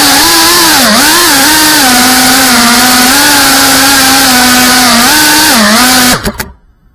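FPV quadcopter's brushless motors whining loudly, heard from the onboard camera. The pitch dips and bends with throttle, holds steady for a few seconds, then the motors cut off suddenly about six seconds in.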